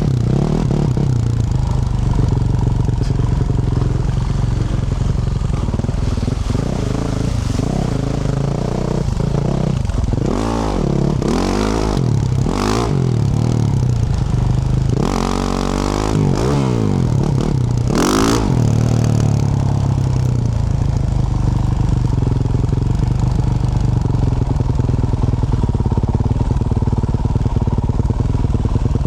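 2024 Yamaha YZ450F's single-cylinder four-stroke engine running through a Yoshimura RS-12 exhaust as the bike is ridden. Through the middle the revs rise and fall several times in quick succession, then the engine settles back to a steadier pull.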